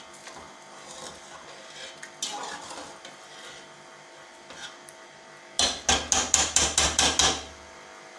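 A metal spatula clinking and scraping lightly in an aluminium pot as cooked mutton pieces are lifted out. Near the end comes a quick run of about nine sharp knocks in under two seconds, the loudest sound here.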